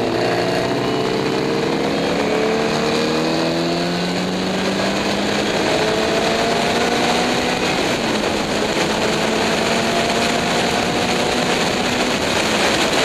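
Onboard sound of a racing car's engine under hard acceleration, its note rising through the revs and dropping back at upshifts about five and eight seconds in, over steady wind and road rush.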